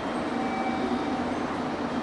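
Railway station platform ambience: steady train noise under the platform roof, with a few faint, brief steady tones coming and going.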